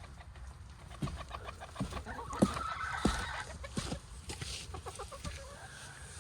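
Domestic hens clucking, with a short pitched call about midway and scattered light taps and clicks around them.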